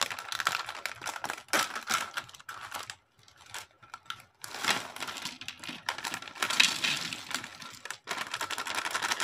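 A plastic snack bag of Bingo Mad Angles chips crinkling as it is torn open and shaken, with a short lull about three seconds in. Near the end the chips pour out of the bag onto a plate.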